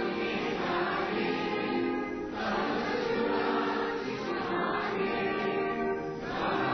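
A national anthem sung by a choir with music, in slow phrases of long held notes, with short breaks between the phrases about two seconds in and again near the end.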